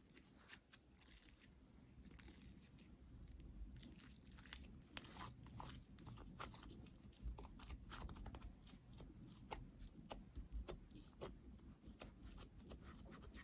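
Clay-mixed slime being squeezed and pulled by hand, giving many small irregular crackling clicks and pops, one sharper snap about five seconds in.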